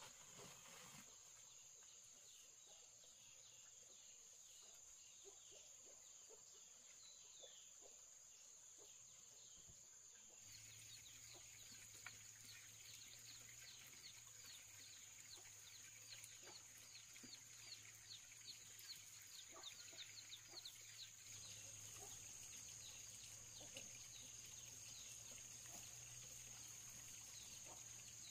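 Faint countryside ambience: a steady high-pitched insect drone, joined about a third of the way in by a quick, even run of short falling chirps.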